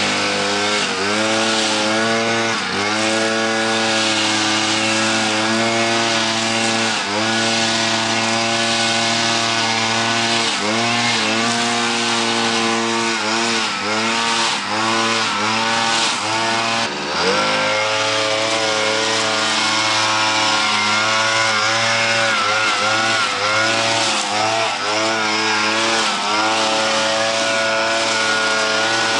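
Petrol string trimmer's small two-stroke engine running at high revs, its pitch dipping for a moment every second or two as the line bites into grass and weeds, then picking back up.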